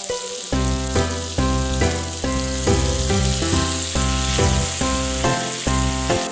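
Background music with a steady beat, with food sizzling as it fries in oil in a pan.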